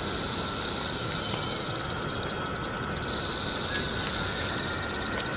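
Insect chorus: a steady, high-pitched chirring that pulses faintly at times.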